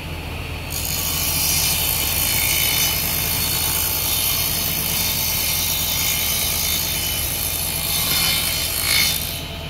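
Table saw running with a steady motor hum. About a second in, the spinning blade starts cutting through a thin wooden board and keeps cutting for about eight seconds. Just before the end the noise peaks briefly as the blade clears the cut, then falls back to the motor hum.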